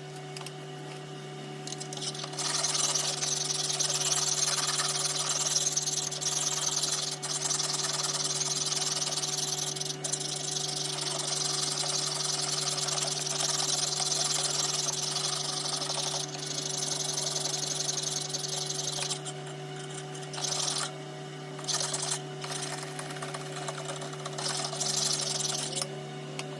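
Small electric power tool running steadily, a constant motor hum under a loud grinding hiss. The hiss drops away briefly a few times near the end while the motor hum carries on.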